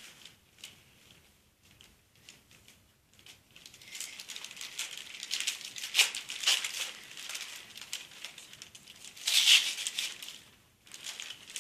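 Wrapping paper being torn and crumpled by hand as a present is unwrapped, a quick rustling and ripping that starts about four seconds in, with its loudest rip near the end.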